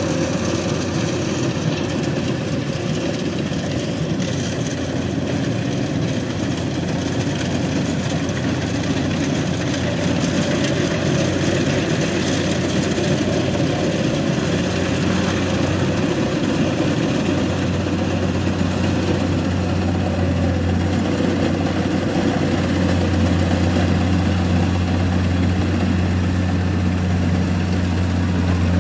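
Kubota DC-70 rice combine harvester's engine running steadily, a loud continuous hum that grows stronger and steadier about two-thirds of the way through as the machine comes closer.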